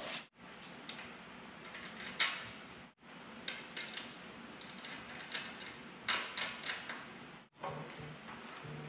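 Handling noises of a steel floor jack being assembled: a string of short metal clicks and knocks as small hardware is taken from a plastic bag and a wheel is fitted to the jack's frame. A low hum comes in near the end.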